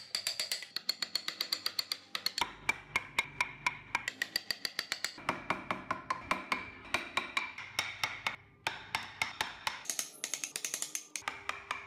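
Rapid, even tapping of a mallet on a wood-carving chisel cutting into the wooden block, about five taps a second with a ringing note over them, broken into several short takes.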